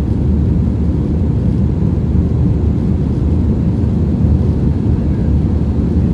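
Steady low rumble of a jet airliner's cabin noise in flight, the engines and rushing airflow heard from inside the cabin at a window seat.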